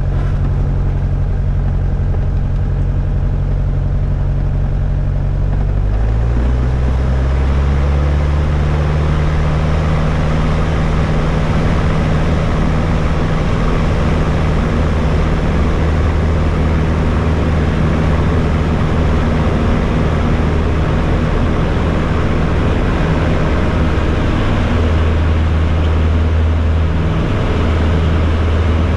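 Light aircraft engine running steadily, its pitch stepping up about six seconds in as power is raised for takeoff, then holding high with a rushing of air over it.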